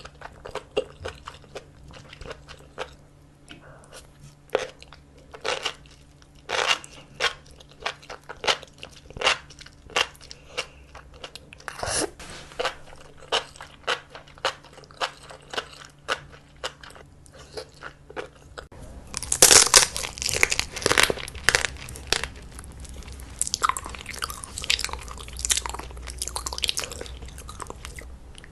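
A person chewing and crunching food close to the microphone, a steady run of sharp, wet crunches and chews. About two-thirds of the way in comes a louder, denser stretch of crackling.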